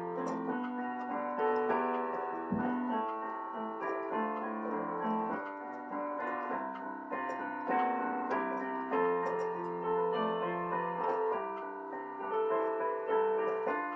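Piano playing a sonata: a melody over held chords, notes changing about every half second.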